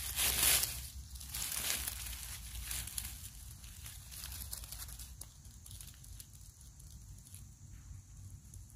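Rustling and crackling of dry leaves and undergrowth, irregular and loudest over the first few seconds, then fainter.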